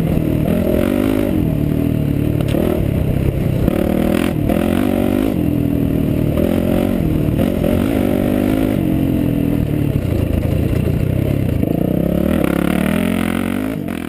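Enduro motorcycle engine, heard from on board, revving up and dropping back again and again as the rider works the throttle along a dirt trail. It fades out near the end.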